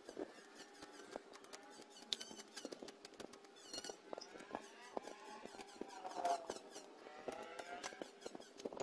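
A knife whittling a thin bamboo strip: faint scraping with small scattered clicks of the blade on the wood. Faint gliding squeaky tones run underneath.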